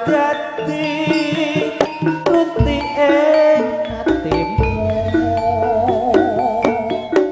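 Live Javanese jaranan music played over a PA: metallophones and drums keep up a busy pattern of struck tones, with deep drum thumps near the middle. Over it a singer holds wavering notes.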